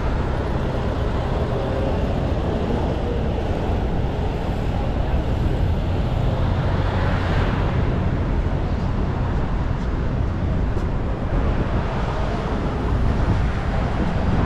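Steady road traffic noise from cars and buses crossing a bridge, engines and tyres blending into a continuous din.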